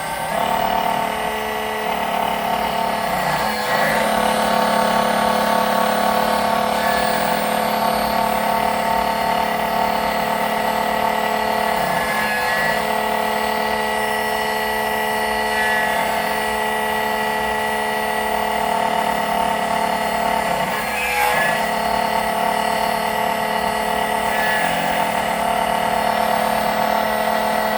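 SEC-9 electric key-cutting machine running steadily with a constant whine while it cuts the number 2 position of a Tibbe key. It dips briefly three times along the way.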